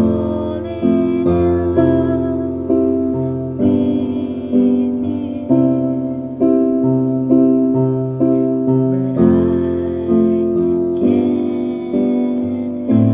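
Piano music with a bass line: a calm tune in chords, a new note struck about every second and fading before the next.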